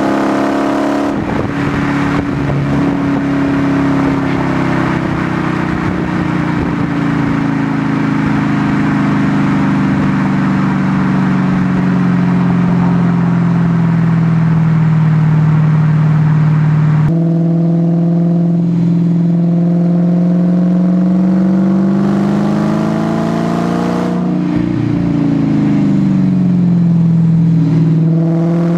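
2012 Dodge Challenger SRT8 392's 6.4-litre HEMI V8 with its exhaust resonators deleted, picked up at the rear bumper while cruising. The exhaust note sinks slowly in pitch through the first half, then changes abruptly and later rises and falls again with throttle.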